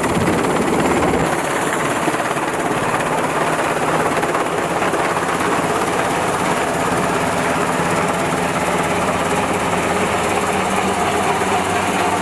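SH-60 Seahawk-type naval helicopter hovering low and then flying off, its rotor and turbine noise loud and steady.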